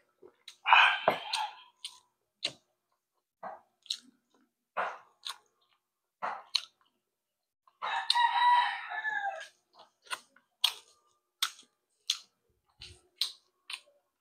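A rooster crowing twice, once about a second in and again near the middle, each crow lasting more than a second. Between the crows come short clicks and smacks of eating: a spoon tapping a plastic plate, and chewing.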